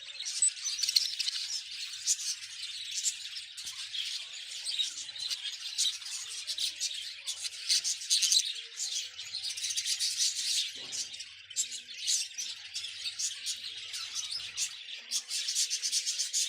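Budgerigars chattering, with a constant run of many overlapping high chirps and warbles.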